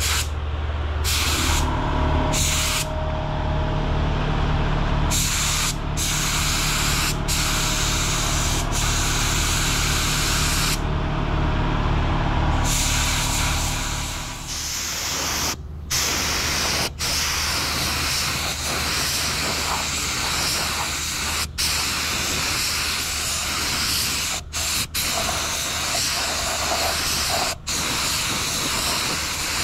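Paint spray gun hissing steadily as it lays on a coat of filler primer, stopping briefly several times in the second half as the trigger is released between passes. A low steady machine hum runs under it and stops about halfway.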